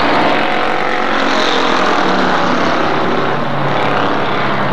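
Several stock cars racing around a short oval, their engines running at speed in a steady drone whose pitch shifts as they pass.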